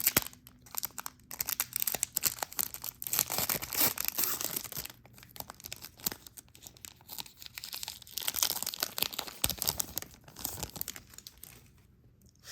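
A trading card pack wrapper being torn open and crinkled by hand, in irregular crackling bursts that die away near the end.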